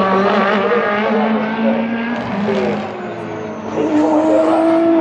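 Racing cars on track, several engines sounding at once with their pitch shifting through gear changes. The sound drops back about three seconds in, then one engine note climbs again as a car accelerates.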